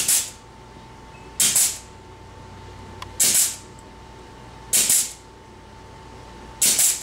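Grease gun pumping grease into a Polaris RZR front wheel bearing through a bearing greasing tool: a short hissing spurt with each stroke, one about every one and a half to two seconds. The bearing is being packed with fresh grease.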